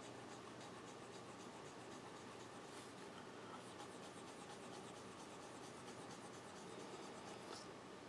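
Studio auto-matic mechanical pencil's lead scratching faintly on lined notebook paper as it writes a row of cursive loops, each loop a quick soft scratch in a steady rhythm of a few strokes a second.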